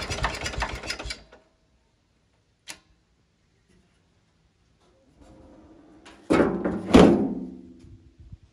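A Ferrari 86RS vineyard tractor's engine running, then shut off about a second in and dying away to silence. A single small click follows. Near the end come two metal bangs with a ringing after them as the sheet-metal engine bonnet is closed.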